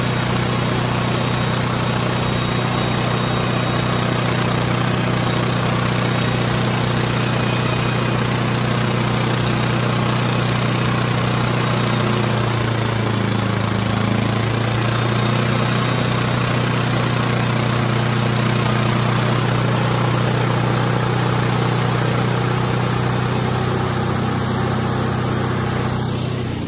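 Wood-Mizer LT28 portable band sawmill running steadily, its engine-driven band blade sawing lengthwise through a log to cut one-inch siding boards. The sound eases off near the end.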